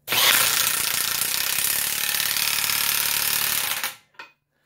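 Milwaukee 3/4-inch impact wrench hammering a nut down onto a bolt held in a vise until it jams fully tight. It is a loud, rapid hammer-blow rattle for nearly four seconds, then stops suddenly.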